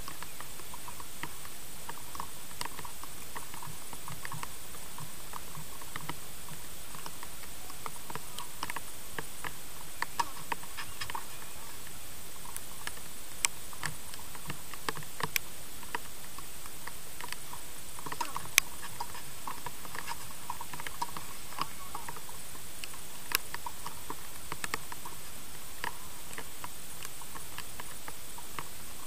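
Tennis balls struck by a heavy Wilson Federer racket strung at 40 kg, heard at a distance on a clay court: scattered sharp pops of racket hits and ball bounces, the loudest a little past halfway, over a steady hiss.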